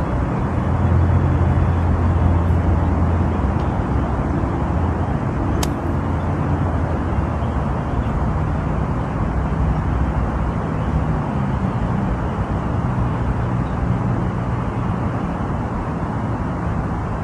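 Golf cart on the move: a steady low rumble with road and wind noise, and a single sharp click about five and a half seconds in.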